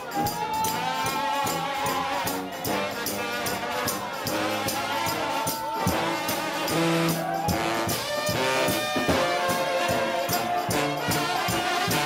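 Gospel shout band of trombones and a bass horn playing, with long held high brass notes over a moving bass line and a steady beat.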